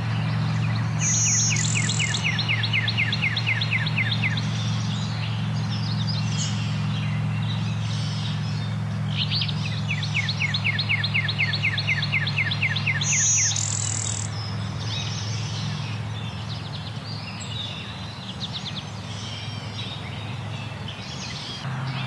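Blue-winged warbler singing its buzzy bee-buzz song twice, about ten seconds apart, with other small birds chipping and trilling in between.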